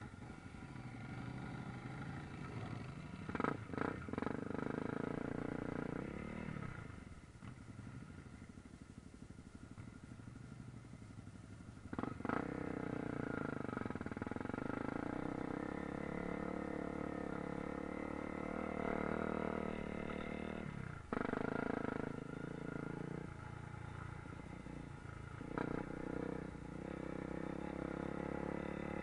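Motorcycle engines running as the bikes pull away and ride a dirt trail, the pitch rising and falling with throttle and gear changes. A few sharp knocks cut in, around three to four seconds in, about twelve seconds in and about twenty-one seconds in.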